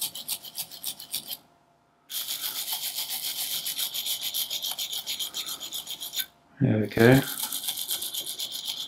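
Brass wire brush scrubbing the dirty electrical terminals of a Lucas dynamo clean, in quick back-and-forth scratching strokes, with two short breaks.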